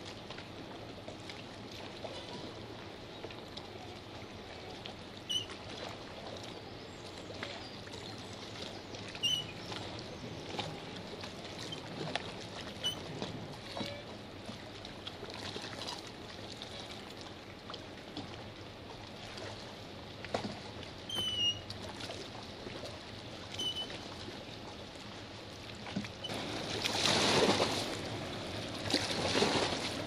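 Steady rushing roar of the Rhine Falls, a large waterfall, heard from across the plunge basin. A few short high chirps sound over it, and the rushing swells louder near the end.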